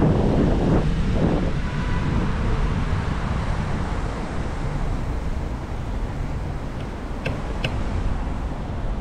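Street traffic noise mixed with wind buffeting a moving bicycle's camera microphone, louder in the first second and a half. Two short sharp clicks come near the end.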